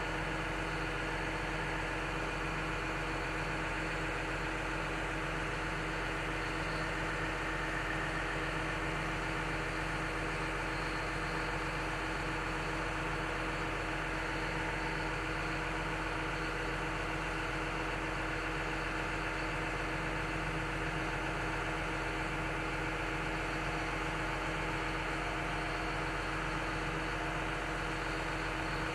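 Heavy machine's diesel engine idling steadily, heard from inside the cab as an even hum with no change in speed.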